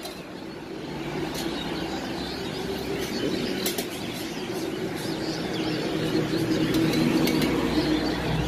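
Roadside outdoor background: a steady traffic rumble that grows louder toward the end, with birds chirping and a few sharp clicks.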